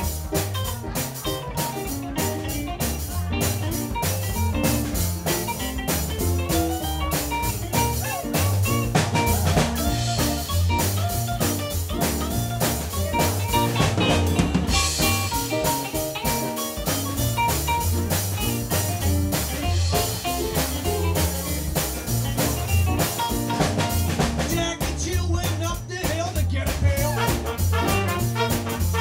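Live swing band playing an instrumental passage: a hollow-body electric guitar takes the lead over a drum kit and an upright bass keeping a steady beat.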